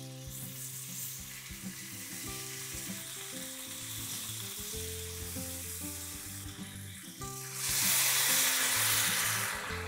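Oil and tomato paste sizzling steadily in a hot frying pan. About three-quarters of the way in, water poured into the pan sets off a much louder sizzle that eases off near the end.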